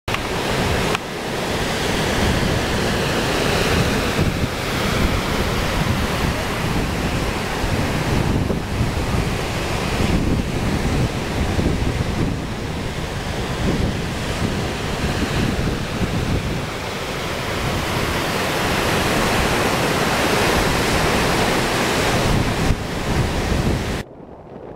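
Ocean surf breaking on the beach, with wind buffeting the microphone in a heavy low rumble. The sound drops off suddenly just before the end.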